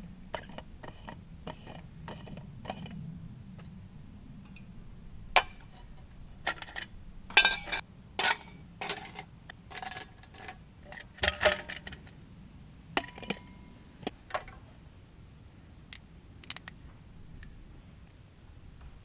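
Irregular clicks, clinks and knocks of small hard objects being handled, loudest and busiest around the middle.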